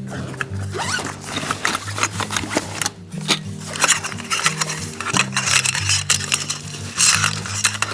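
Rustling of a fabric cot storage bag and clinking of the cot's metal frame poles as they are pulled out of it, with background music throughout.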